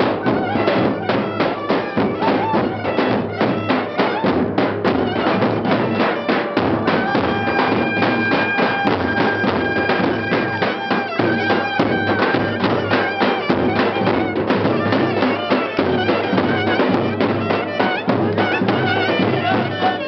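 Live Turkish wedding dance music: a davul bass drum beats a steady dance rhythm while a shrill reed wind instrument plays the melody, holding one long note partway through.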